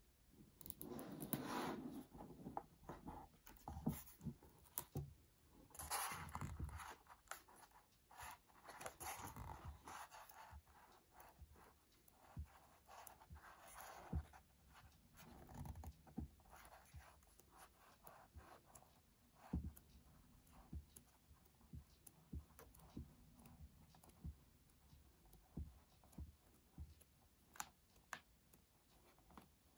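Pages of a hardcover book being turned by hand: faint paper rustling and page flaps, strongest in the first ten seconds, then lighter page flicks and small taps.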